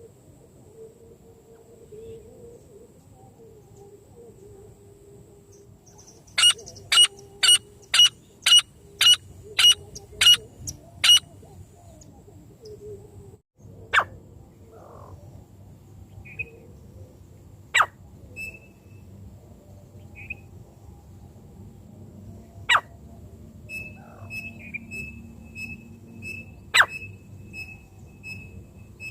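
Francolin (teetar) calling: a run of about nine sharp, loud notes at roughly two a second, then single sharp notes every few seconds. Near the end comes a quick, even series of short, fainter chirps.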